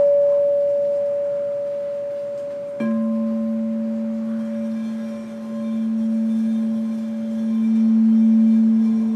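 Frosted quartz crystal singing bowls ringing. The smaller bowl's higher tone fades away while the larger bowl is tapped with the striker wand about three seconds in. The larger bowl's deeper tone then builds and swells as the wand is held to its rim.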